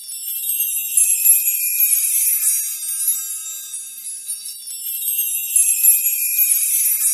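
High, shimmering tinkle of small bells or chimes, a sparkling sound effect with no low tones, swelling twice.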